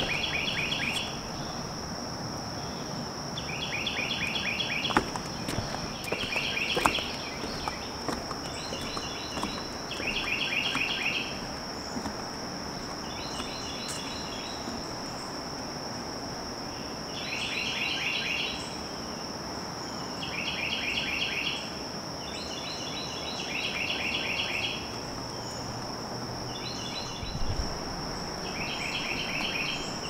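Woodland morning ambience: a songbird repeats a short, rapid trilled phrase about every three seconds over a steady high-pitched insect drone.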